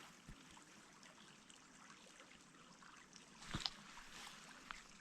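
Faint creek water trickling, with a single soft knock about three and a half seconds in.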